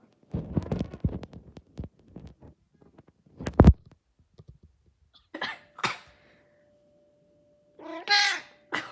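Handling bumps and one loud knock, then two short rough calls and a pet cat's drawn-out meow near the end, over a faint steady hum.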